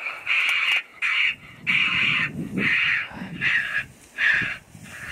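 Raccoon squall call being blown: a run of short, harsh squalls, about two a second, imitating raccoons fighting in order to call raccoons out.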